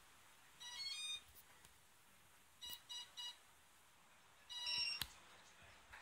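Electronic beeps: a short warbling tone phrase about half a second in, three quick beeps around the middle, and a louder tone phrase near the end followed by a sharp click, over a faint steady hiss.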